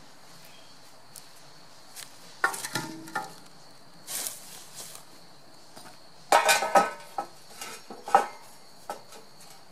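Concrete blocks and a steel beam being shifted by hand, giving a series of clanks, clinks and knocks of block and metal against each other, the loudest cluster about six to seven seconds in. A faint steady high-pitched insect chirr runs underneath.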